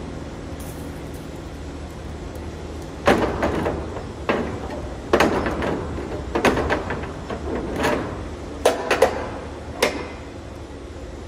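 Rear swing doors of a Wabash dry van trailer being swung shut and latched: a run of metal clanks and knocks starting about three seconds in, with several sharp knocks near the end, over a steady low hum.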